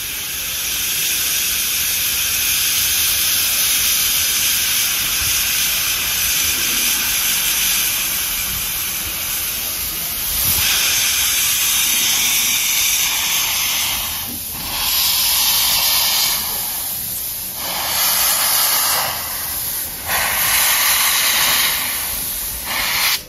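Narrow-gauge steam locomotive standing in the station, venting steam with a loud, continuous hiss. The hiss is steady at first, then swells and eases several times in the second half, and cuts off suddenly at the end.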